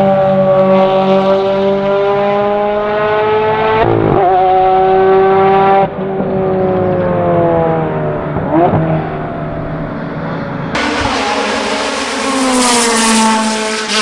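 Ferrari 360 GTC's 3.6-litre 90° V8 racing engine running hard at high revs, with a gear change about four seconds in. About eleven seconds in it gives way to a Ferrari F430 GTC's 4.0-litre V8, whose note falls as it slows.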